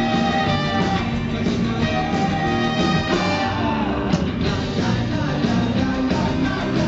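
Live rock band playing loudly: electric guitars, bass and drums, with a lead vocal singing over them.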